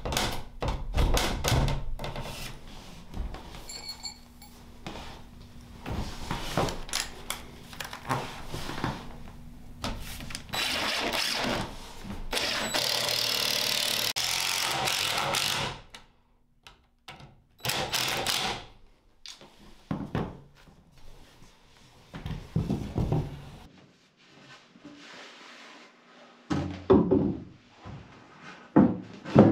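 Wooden knocks and thuds as cedar bed rails and posts are handled and fitted. Partway through, a cordless drill runs for several seconds, driving a screw into a bed post, followed by a shorter run. More scattered wooden knocks come near the end.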